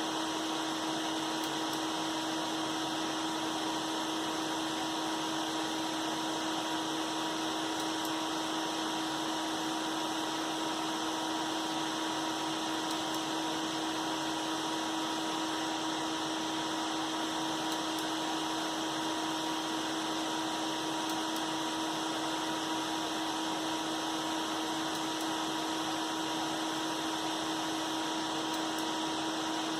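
A bank of seven computer case fans running together: a steady rush of air with a constant hum and a fainter, higher steady tone.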